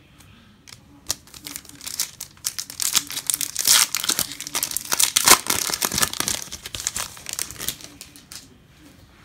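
A baseball card pack's foil wrapper being torn open and crinkled by hand. The crackling starts about a second in, is loudest in the middle and dies away near the end.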